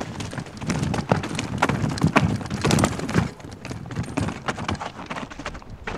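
Mountain bike descending a rocky forest trail: knobby tyres crunching over dirt and rock, with an irregular run of knocks and rattles from the bike hitting rocks and roots.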